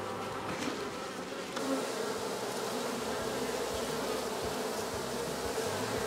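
A swarm of honeybees buzzing around the hive it has just been put into: a steady hum that grows louder and fuller about a second and a half in.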